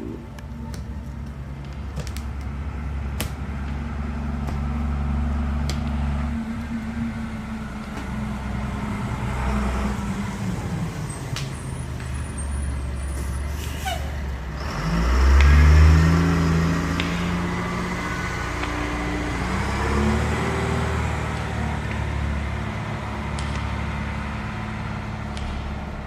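A motor vehicle's engine running steadily at low revs. About fourteen seconds in it breaks off briefly, then revs up with a quickly rising pitch, loudest just after, and runs on at higher revs.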